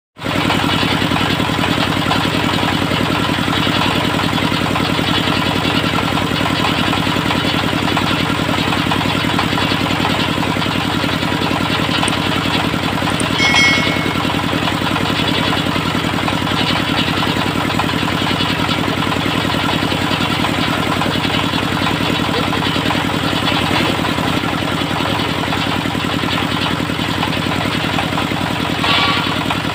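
Engine of a homemade circular-saw sawmill running at a steady speed, with a brief high chirp about halfway through.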